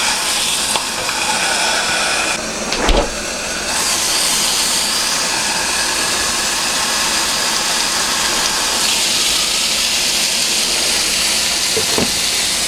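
A hamburger patty sizzling on a stovetop griddle under a glass lid as the cheese slice on top melts, a steady hiss. There is a single short knock about three seconds in.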